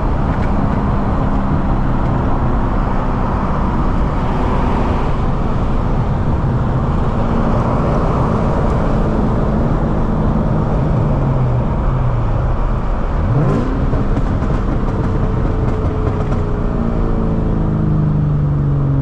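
A 2003 Mustang SVT Cobra's supercharged V8 and road noise while driving. The engine note rises and falls as the speed changes, with a quick rising sweep about two-thirds of the way through.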